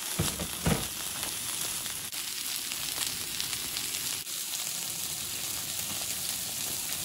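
Pork belly sizzling on a hot round griddle: a steady frying hiss with fine spitting of fat, and two soft thumps in the first second.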